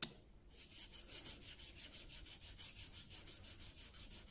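The steel back of a Marples Gold Chip chisel is scrubbed back and forth flat on a 1000-grit diamond plate, making a fast, even scraping of about five strokes a second after a short knock at the start. The chisel's back is being lapped to take out the scratches left by the 300-grit plate.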